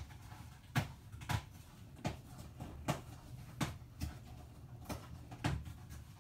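A series of about eight short knocks, irregularly spaced roughly half a second to a second apart, which the resident takes for the upstairs neighbours hitting things in their kitchen.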